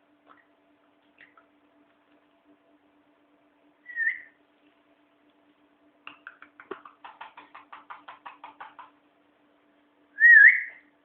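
Pet parrot whistling: a short whistle, then a quick run of about fifteen short chattering notes, then a louder wavering whistle near the end.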